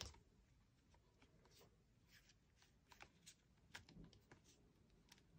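Near silence with a few faint, light taps and rustles, mostly in the second half, as a clear acrylic stamp is handled and laid onto card.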